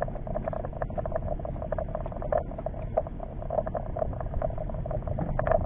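Spinning reel being cranked against a bent rod during a fish fight: a steady hum with many irregular clicks and ticks.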